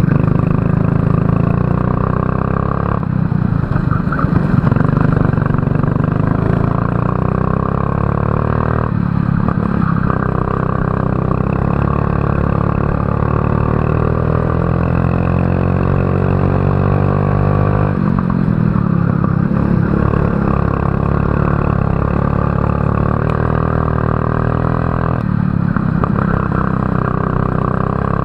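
Kart engine running flat out during a race lap. Its pitch climbs steadily under acceleration, with one long climb through the middle, then falls abruptly four times as the driver lifts off to slow for corners.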